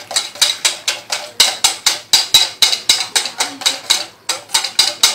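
A utensil beating pancake batter in a stainless steel bowl, clinking against the metal about four times a second in a steady rhythm, with a brief pause about four seconds in.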